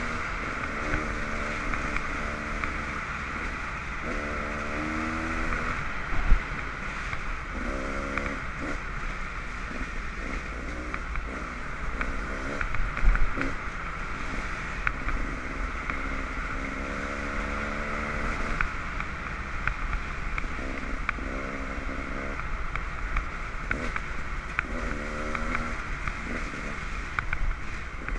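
Dirt bike engines running along a trail, repeatedly revving up and easing off in spurts, over a steady rushing noise. There are two sharp thumps, about six and about thirteen seconds in.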